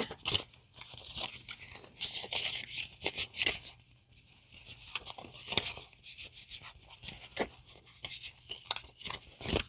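Paper and plastic rustling and crinkling in irregular handfuls, with small clicks, from budgeting sheets, cash and envelopes being handled and put away. It pauses briefly near the middle.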